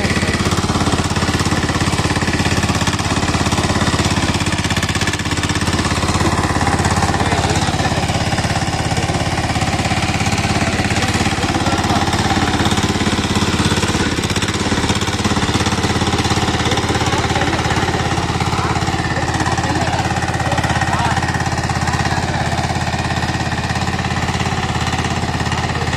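Kohler Lombardini single-cylinder diesel engine of a walk-behind rotary power weeder running steadily under load with a fast, even knock, as its rotary tines churn dry soil.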